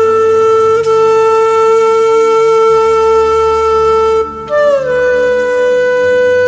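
Background music: a wind instrument holds long notes over a low drone. One note is held for about four seconds, then after a brief break a new, slightly higher note begins and slides a little down.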